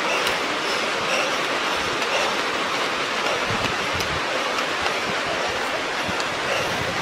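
Steady rushing noise with a few faint ticks scattered through it.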